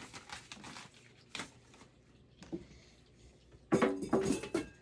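Kitchenware being handled on a counter: a few light knocks and clicks, then a burst of clattering near the end.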